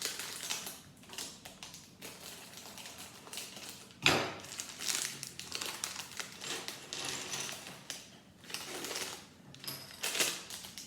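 Packaging of a small bag of LEGO pieces being torn open and handled, crinkling irregularly, with a louder rustle about four seconds in.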